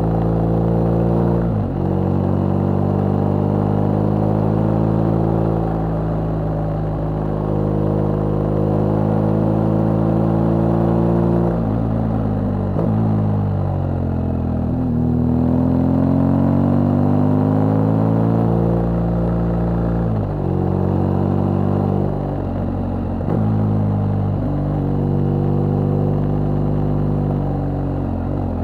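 BMW R1200GS boxer-twin motorcycle engine pulling uphill under steady throttle. The engine note falls and then climbs again about halfway through, and dips briefly several times at gear changes.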